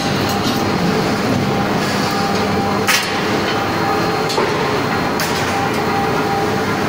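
Steady din of flywheel mechanical presses running on a hot-forging line, with a sharp metallic clank about three seconds in and fainter clanks a little over one and two seconds later.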